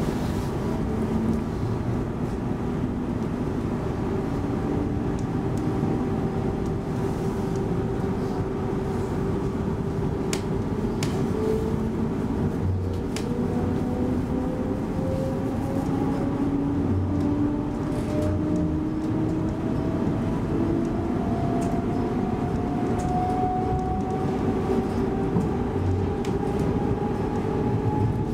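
Cabin noise of a running Stockholm X10 commuter electric train: steady rumble of the wheels on the rails, with a faint whine that climbs slowly in pitch throughout and a few scattered clicks and knocks.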